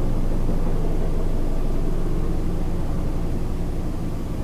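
Steady low rumbling noise with a hiss over it and a faint hum underneath, easing off slightly near the end.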